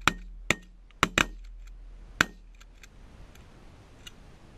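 Several shotguns firing in a rapid volley: five sharp blasts in the first two and a half seconds, two of them almost together, followed by a few faint clicks.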